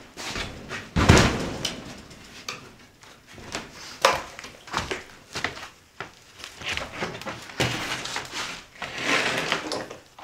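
Irregular wooden knocks and clatter of lumber and tools being handled on a plywood subfloor, the loudest a heavy thump about a second in.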